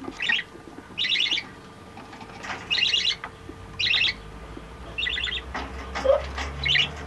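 Budgerigars chirping in short rapid bursts, about six of them roughly a second apart, over a faint steady hum.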